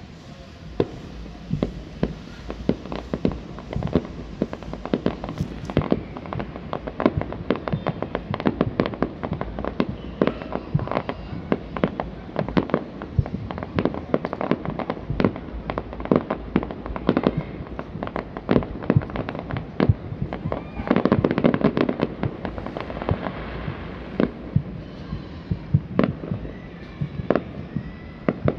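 Fireworks going off: a continuous barrage of overlapping bangs and crackles from aerial shells and firecrackers, thickest about three-quarters of the way through.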